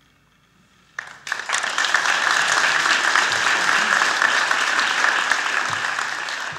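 Audience applause, starting suddenly about a second in after a near-silent pause and holding steady.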